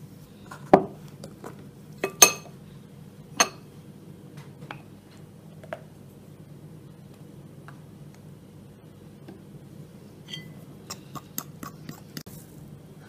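A metal spoon and a drinking glass clinking against a glass mixing bowl of flour: three sharp clinks in the first few seconds, the second the loudest, then a few weaker ones. Near the end comes a short run of faint light taps as flour is tipped in and mixed by hand.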